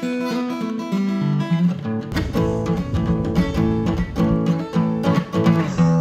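Acoustic guitar strummed in an instrumental theme-song intro. Lower notes fill out the accompaniment about two seconds in.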